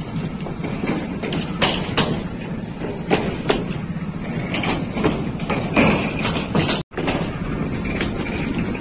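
Motorcycle running across the wooden plank deck of a pontoon bridge: a steady low engine hum with irregular knocks and clatters as the loose planks are ridden over. The sound cuts out for a moment about two-thirds of the way through.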